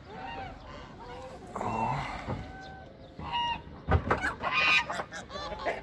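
Free-range hens clucking and calling several times. A sharp thump comes about four seconds in.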